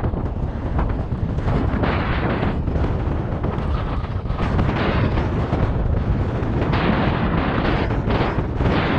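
Strong wind buffeting the microphone in gusts, a loud rumbling rush with no let-up.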